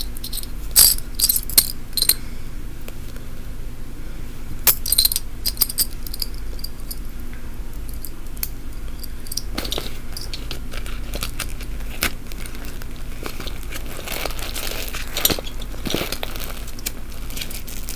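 Metal keychain rings and small pin badges jingling and clicking as hands handle the bag to fit a pin. The clicks come in quick clusters in the first few seconds, go quieter, then pick up again with scattered clicks and rustling over a faint steady hum.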